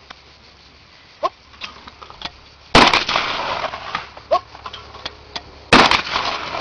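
Two shotgun shots at flying clay targets, about three seconds apart, each trailing off in an echo.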